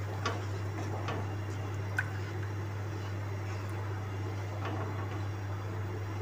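Spatula stirring watery masala gravy in a nonstick saucepan, with a few light clicks and scrapes against the pan, over a steady low hum.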